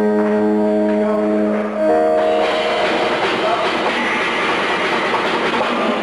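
Band soundcheck through the arena PA: amplified electric guitar holding sustained chords, changing chord about two seconds in. The sound then turns into a dense, noisy wash of instruments.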